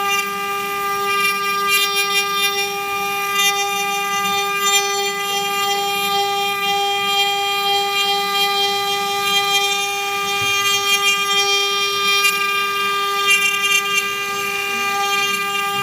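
CNC wood router's spindle running with a steady, high-pitched whine while its bit carves wood, with a rough cutting noise that swells and fades every second or two.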